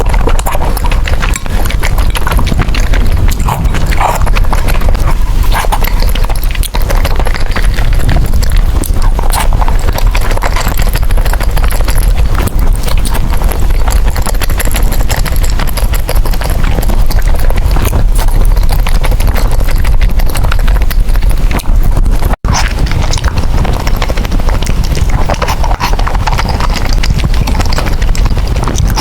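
Close-miked eating sounds of noodles being chewed and slurped, a dense run of wet clicks that breaks off for an instant about three quarters of the way through.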